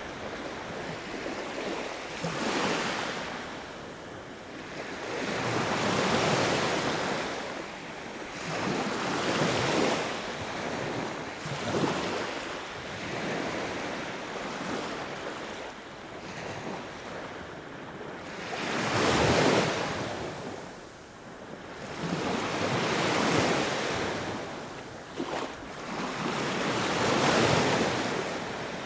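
Sea waves breaking and washing ashore, a rushing surf noise that swells and ebbs about every three to four seconds.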